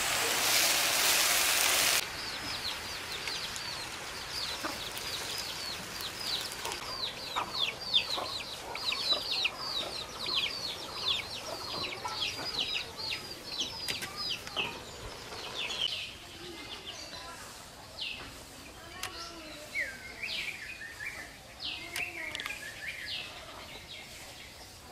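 Small songbirds chirping in bamboo: a dense chorus of quick, high, downward-sweeping notes that thins out to scattered calls about two thirds of the way through, with a few low short calls underneath. It opens with a loud steady hiss that cuts off suddenly about two seconds in.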